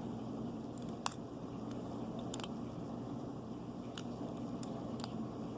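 Faint, scattered small clicks from a Master combination padlock's shackle and mechanism being pushed and worked by hand, over a steady low hum.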